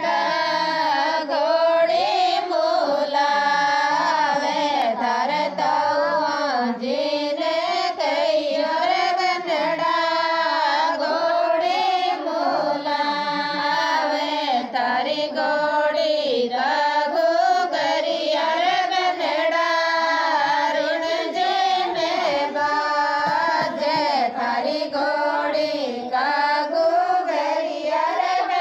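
A woman singing a Rajasthani folk wedding song (banna or ghodi geet) in one continuous melodic line, the voice wavering and gliding between notes without pause.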